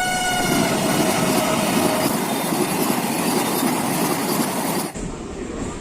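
A train running, a dense rumbling noise with a high tone that slowly falls in pitch over the first couple of seconds. Near the end the sound cuts off abruptly to something quieter.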